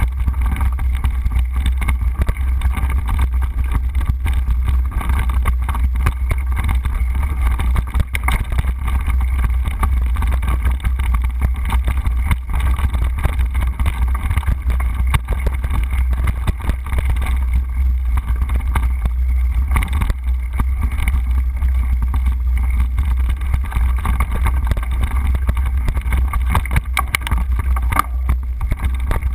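Mountain bike riding a dirt singletrack, heard through a camera mounted on the bike or rider: a steady low rumble of tyres on dirt and wind on the microphone, with frequent small rattles and knocks from bumps in the trail.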